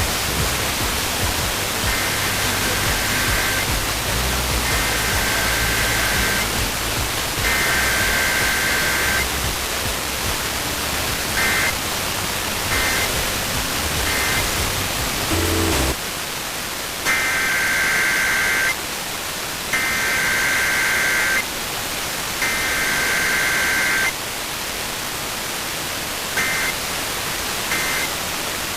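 Emergency Alert System SAME data bursts over steady radio static: three long buzzy bursts of header code, then three short end-of-message blips. The whole sequence plays twice, and the low hum under the static drops out between the two runs, about 16 seconds in.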